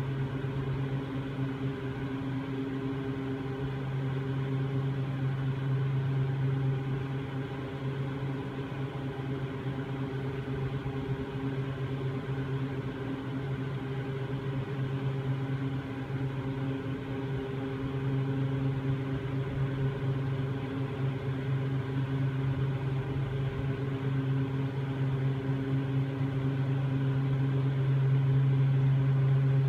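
Steady low mechanical hum of a machine running, a constant drone with a few fainter higher tones above it. It swells and eases slightly in level but does not stop.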